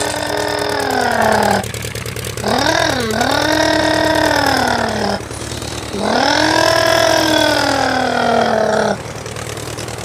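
Vehicle engine-revving sound for a toy excavator truck, in three long revs: each one jumps up in pitch, wavers, then slides slowly down, with short pauses between them over a steady low hum.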